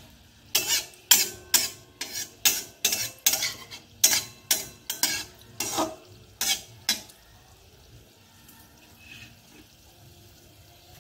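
A metal spatula scrapes and taps against a metal kadai, about two strokes a second, while dough balls fry in oil with a faint sizzle. The strokes stop about seven seconds in, leaving only the quiet sizzle of the oil.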